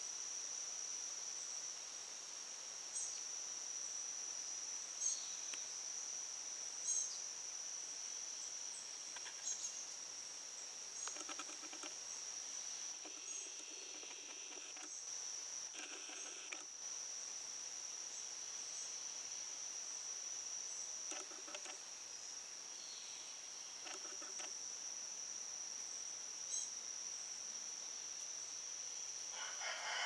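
A steady high insect trill runs throughout, with small songbirds giving short scattered chip notes over it and a few brief, fuller calls in the middle.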